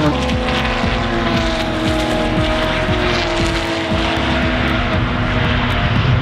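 Porsche sports cars running at speed on a racetrack. The engine notes fall slowly in pitch as a car passes and draws away, over a steady rushing noise.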